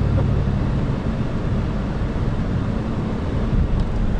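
A car moving on a wet road, heard from inside the cabin: a steady low engine hum under tyre and road noise.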